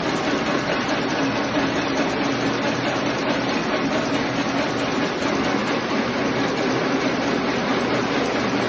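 Automatic agarbatti (incense stick) making machine running, a steady, fast mechanical clatter.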